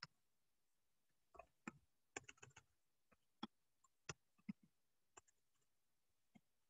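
Near silence broken by a dozen or so faint, irregularly spaced clicks and soft knocks, bunched in the middle seconds.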